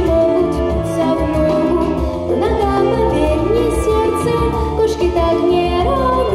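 A girl singing a song into a handheld microphone, amplified, over instrumental accompaniment with a bass line.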